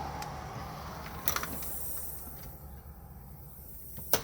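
Storm door swinging slowly shut under its pneumatic closer, which has been tightened at its adjustment screw, with a steady hiss throughout and a click about a second in. At the very end the door latches shut with a sharp thunk.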